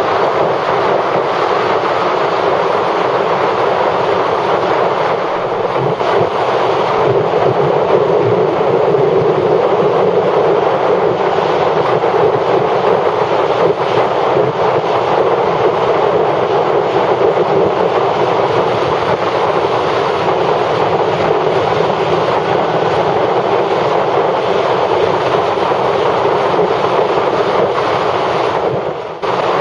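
Steady rush of wind and road noise on a motorcycle riding at highway speed, dipping briefly near the end.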